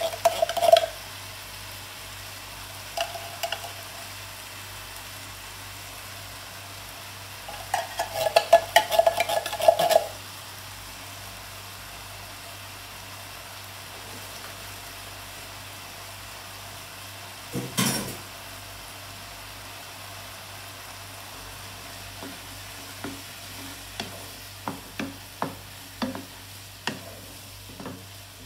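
Meat sauce sizzling steadily in a skillet on a gas burner while a wooden spatula stirs and scrapes the pan in short clattery bursts near the start and for a couple of seconds around eight to ten seconds in. A single knock comes about eighteen seconds in, and a run of short clicks and taps fills the last few seconds.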